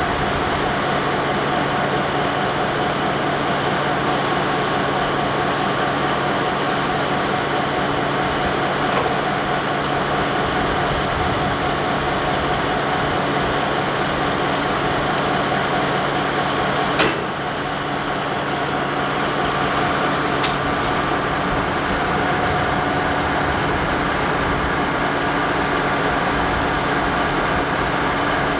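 Diesel locomotive engine idling steadily with a constant hum. It is heard through a camcorder's built-in microphone. A sharp click about two thirds of the way in breaks the sound briefly, and then the steady engine sound carries on.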